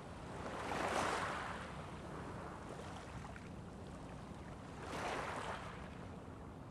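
Surf washing on a beach: two waves rise and fall away, about four seconds apart, over a steady low rumble.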